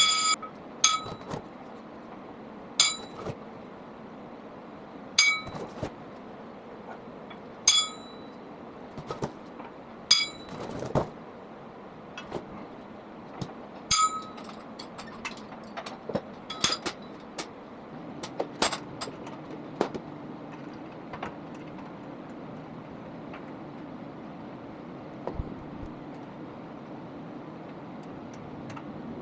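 Sharp metal clinks, each with a brief ringing tone, about every two to three seconds, then lighter scattered clicks: steel rack parts being handled and knocked together during assembly.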